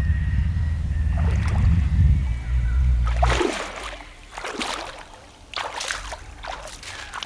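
A low rumble for the first few seconds, then a hooked bass splashing and thrashing at the water's surface several times as it is played in.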